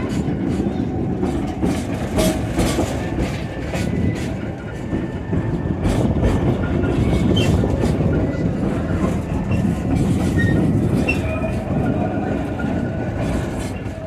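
Former circus passenger cars rolling along the track, with a steady low rumble and irregular clicks of the wheels over rail joints. The sound cuts off at the end.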